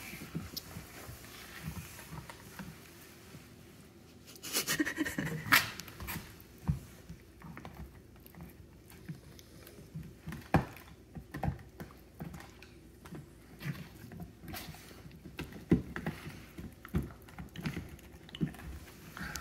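A puppy gnawing a toy bone: irregular clicks, scrapes and crunches of teeth on the bone, with a louder flurry about five seconds in.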